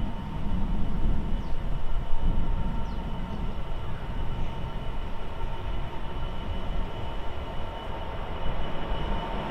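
Class 66 diesel-electric locomotive approaching slowly at the head of a coach train, its two-stroke EMD diesel engine running with a steady low rumble and a thin, steady high whine over it.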